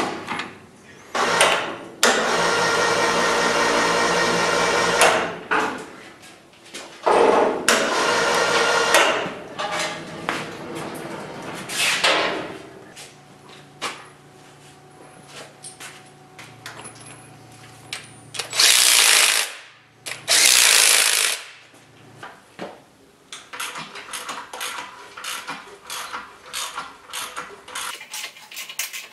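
Cordless impact driver hammering on bolts in several bursts of a few seconds each. From about 23 s, light rapid clicking as a wrench turns the engine stand's rotation adjuster, a truck brake slack adjuster.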